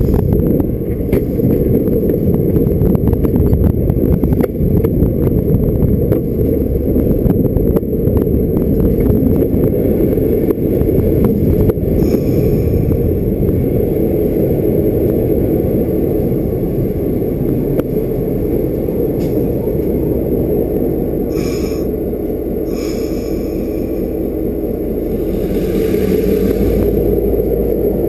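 Freight train rolling slowly through a rail yard during shunting: a steady low rumble of engine and wheels, with a run of clicks and knocks from the wheels crossing rail joints and points in the first ten seconds. About two-thirds of the way through come two brief higher-pitched noises, and the rumble swells again near the end.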